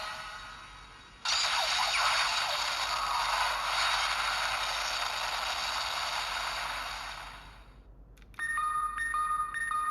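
Electronic sound effects from a DX Ultraman Max Hyper Key toy's small speaker: a long hissing blast starts suddenly about a second in and slowly fades away, then near the end a repeating two-note electronic chime begins, about two beeps a second.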